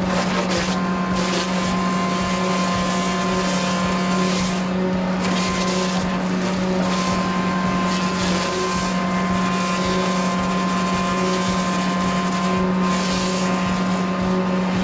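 A heavy machine running steadily under load, a constant engine hum with a dense rush of mechanical noise that swells and eases every second or so.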